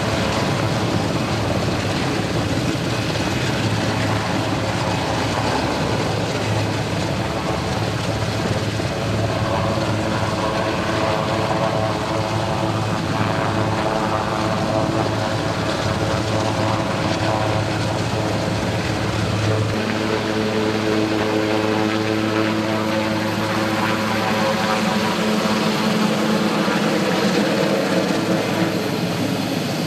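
CH-124 Sea King helicopter hovering low with a steady rotor beat and turbine noise, its downwash throwing spray off the water. About two-thirds of the way through, the deep rotor beat drops away and higher engine tones come up as it climbs off.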